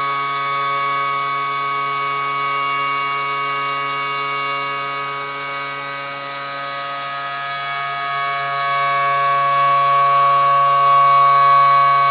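CNC stone router's spindle driving a segmented finger bit through stone, a steady high-pitched whine made of several held tones, growing a little louder near the end.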